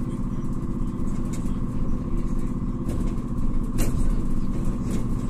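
Inside a LAZ E301D1 trolleybus on the move: the steady hum of its electric drive over the rumble of the road, with a few sharp knocks from the body, the loudest about four seconds in.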